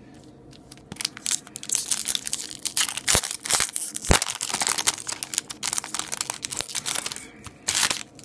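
Foil hockey card pack wrapper crinkling and tearing open in the hands. The crackle starts about a second in with sharp snaps, and a last burst of crinkling comes near the end.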